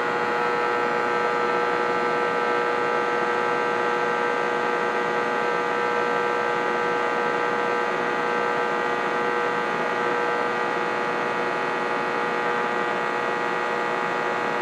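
Steady electronic hum and whine of several fixed tones over a hiss, unchanging, while a CB radio is held keyed on transmit.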